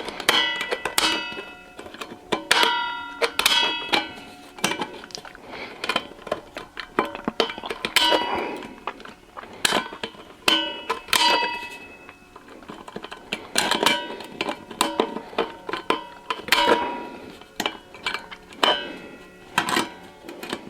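Hand tool nicking and cutting into a stainless steel utensil bin: irregular sharp clicks, each followed by a short metallic ring at the same few pitches.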